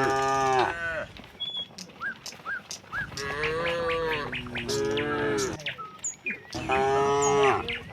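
Cattle mooing: three moos, the middle one the longest.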